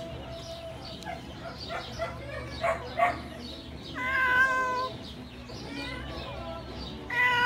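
Cat meowing: a loud meow about four seconds in and another starting near the end, with many short, fainter mews in between.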